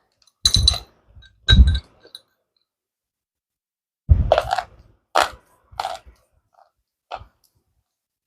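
Close-up crunching of slate pencil being bitten and chewed: about six separate sharp, brittle crunches with silent gaps between them, the loudest in the first two seconds and again about four seconds in.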